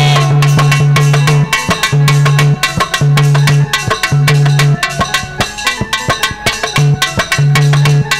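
Instrumental break in a jachcha geet folk song with no singing: an electronic keyboard plays repeated held low notes over a fast, busy tabla-like drum rhythm.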